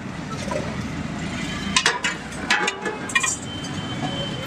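Steady street traffic noise with several sharp clinks of stainless steel plates and utensils being handled, clustered about two to three seconds in; the last is followed by a thin ringing tone.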